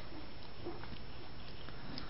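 Steady low hiss of background room tone, with no distinct sound.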